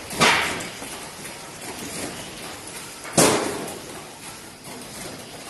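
Automatic cartoning machine running with a steady mechanical clatter, broken twice by a loud sharp bang, near the start and about three seconds in.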